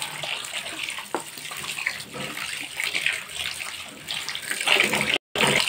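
Tap water pouring into a pan of raw chicken pieces and splashing as a hand rubs and rinses the chicken. The sound drops out for a moment about five seconds in.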